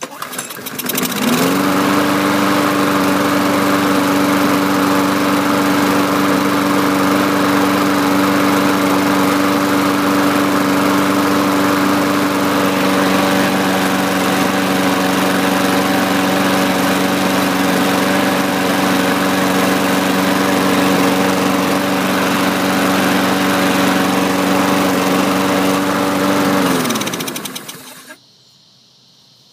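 Snapper walk-behind mower's Briggs & Stratton 675-series 190cc single-cylinder engine starting up, rising to a steady governed run about a second in and running evenly. Near the end it is shut off and winds down with falling pitch.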